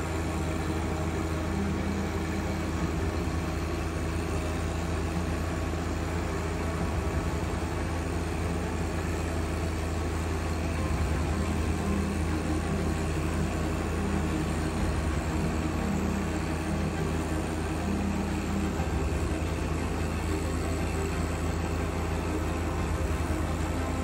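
John Deere 1025R subcompact tractor's three-cylinder diesel running steadily, driving a 47-inch front-mount snowblower as it throws snow.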